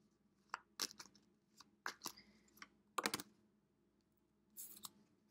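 Tarot cards being shuffled by hand: soft, irregular snaps and flicks of card stock, with a quick run of several clicks about three seconds in.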